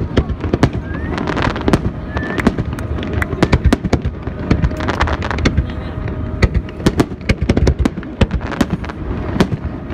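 Fireworks display going off in quick succession: a dense, irregular run of sharp bangs and crackles, several a second.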